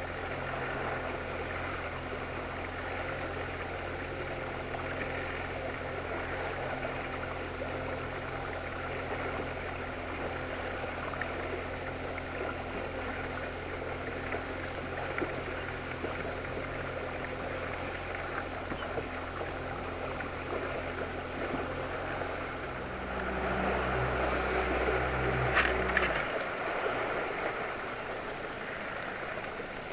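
Outboard motor of a small inflatable boat running steadily at trolling speed, with water rushing and splashing along the hull. About 23 seconds in, the motor's note changes and grows louder, then the hum stops a few seconds later, leaving only the water.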